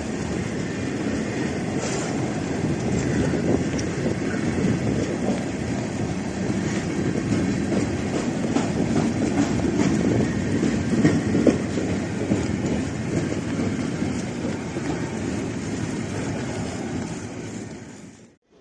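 Ferromex intermodal freight train rolling past, its wheels clattering over the rail joints, mixed with the constant noise of heavy rain and water. The sound cuts off abruptly near the end.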